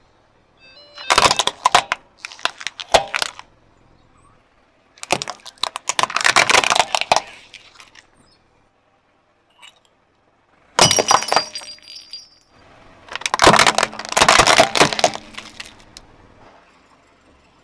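Plastic toy cars cracking, snapping and crunching as a car tyre rolls over and crushes them. There are four bursts of breaking, each a second or more of rapid sharp cracks, with short quiet gaps between them.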